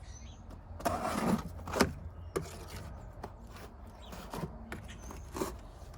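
A knife cutting through the bottom flaps of a cardboard box: a rasping slice about a second in, then scraping and a handful of sharp knocks and clicks as the cardboard is worked open.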